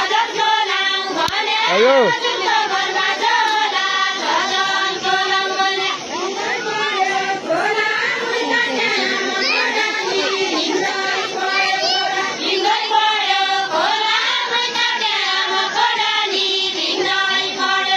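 A group of women singing a deuda, the Far-Western Nepali folk song, together in long held, wavering phrases. A single high voice whoops up and down about two seconds in.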